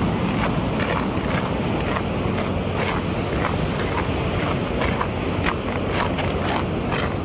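Walking footsteps, about two steps a second, over a steady low rumble of wind buffeting the microphone.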